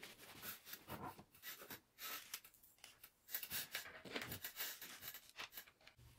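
Parts of a casting mould handled and fitted together by hand on an acrylic base plate: faint, irregular scraping and rubbing with small clicks and knocks.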